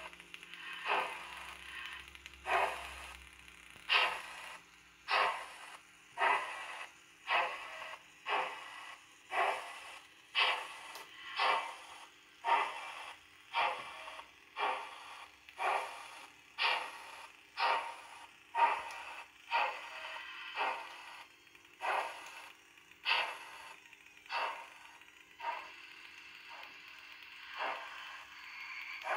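Model steam locomotive's sound decoder playing slow exhaust chuffs through its small loudspeaker, about one chuff a second as the locomotive creeps along, over a faint steady hum.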